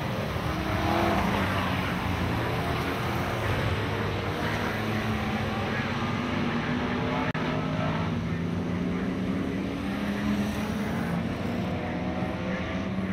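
Dirt-track stock car engines running hard, several cars at once, their drone rising and falling in pitch as they pass. There is a momentary dropout about seven seconds in.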